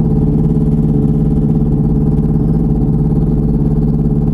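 Light aircraft engine running steadily at low power, a constant drone with no change in pitch, picked up by a lav mic inside the pilot's helmet.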